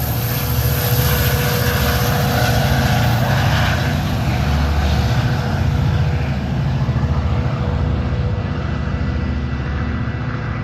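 Metra SD70MACH diesel-electric locomotive's engine working under power with a deep throbbing drone as the train pulls out, easing off slightly near the end.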